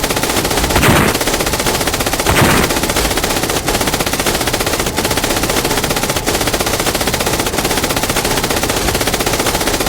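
Sustained, rapid MG42 machine-gun fire, unbroken throughout, with louder bangs about a second in and again near two and a half seconds.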